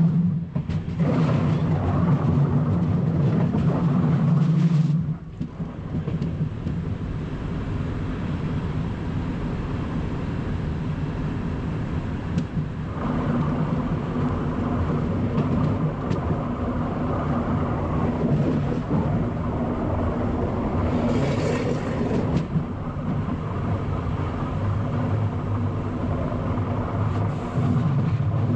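ČD class 471 electric multiple unit running along the track: a steady running rumble with a low drive hum that is louder for the first five seconds, then drops back and comes up again near the end. Two brief hissing rushes come late on.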